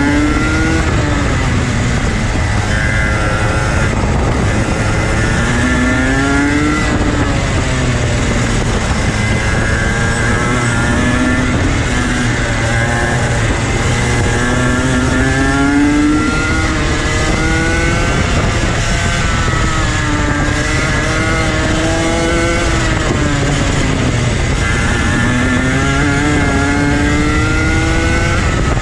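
TaG racing kart's two-stroke engine lapping a circuit. The revs climb in long rising pulls, then drop sharply off the throttle, again and again. The owner says this engine won't rev past 12,500 rpm.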